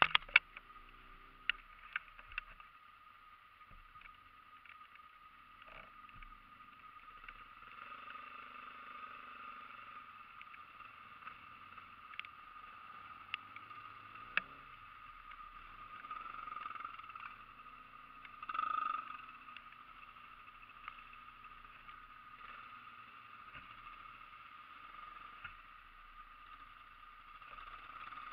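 ATV engines running faintly and steadily, with a few sharp clicks in the first couple of seconds and a brief louder swell about two-thirds of the way through.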